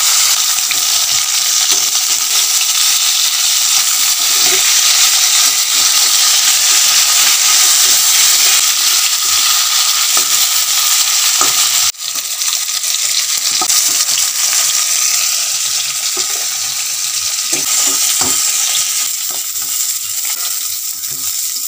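Pieces of katla fish, rubbed with salt and turmeric, sizzling loudly as they fry in hot oil in a wok, with short knocks and scrapes of a metal spatula turning them. The sizzle breaks off for an instant about halfway through, then goes on, easing slightly near the end.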